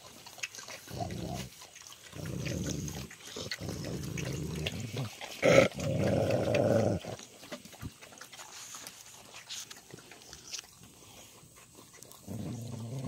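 Dog growling low over its food in several stretches of a second or two, with one sharp, loud snap or bark about halfway through.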